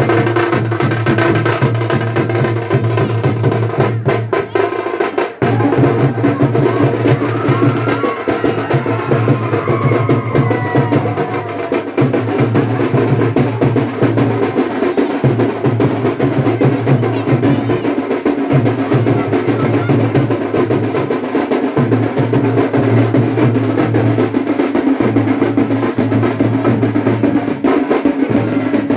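Loud, continuous drumming with fast rolls, playing without a break.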